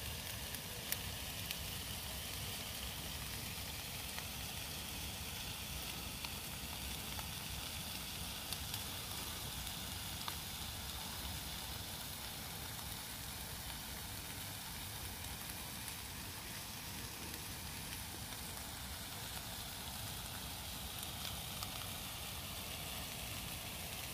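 Chicken pieces sizzling steadily in a frying pan over a canister gas camping stove, with a few small pops.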